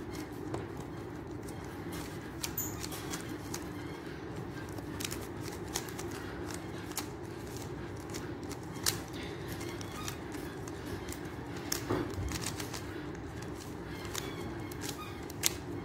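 A 3x3 Rubik's Cube being scrambled by hand: its plastic layers turning with irregular sharp clicks and clacks.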